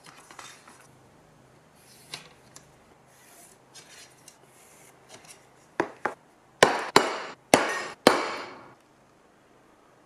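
Steel marking-out tools scraping and tapping on a steel plate, then six sharp metallic clanks with short ringing tails in the last few seconds.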